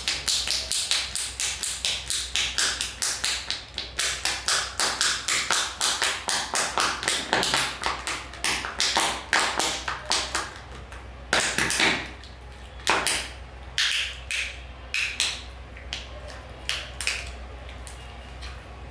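Hard plastic Kinder Joy eggs knocking and clattering against one another, a quick run of sharp clicks at about four to five a second that thins to separate knocks about halfway through.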